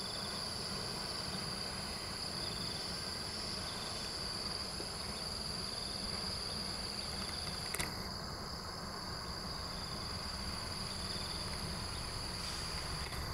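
Steady high-pitched insect chorus with a low rumble underneath and a single short click about eight seconds in.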